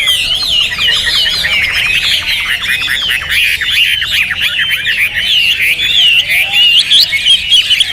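Hwamei (Chinese hwamei, a laughingthrush) singing loudly and without pause: a fast, varied warble of quick rising and falling whistled notes.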